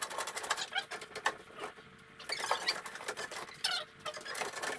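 Rapid small scratching, rubbing and clicking: water supply lines being threaded through a hole in the cabinet. There is a brief quieter pause about two seconds in.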